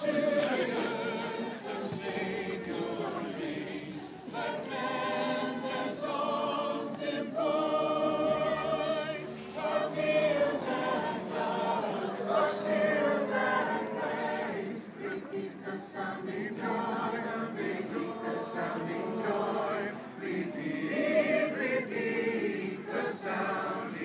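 Many voices singing a song together, like a choir or a crowd singing along.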